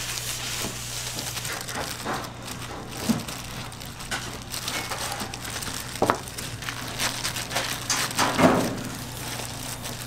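Plastic food-service gloves crinkling as hands scoop and press a soft salad filling onto a slice of bread, with a few knocks and thuds, three of them sharper than the rest. A steady low hum runs underneath.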